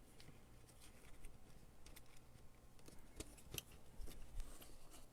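Faint, scattered light clicks and taps of a plastic replacement fan being set down and seated in a diffuser's housing, over a low steady hum.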